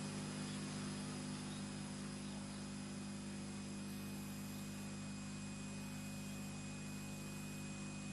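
Steady electrical hum and hiss from the sound system: a low mains-type buzz with a thin high tone above it, unchanging throughout.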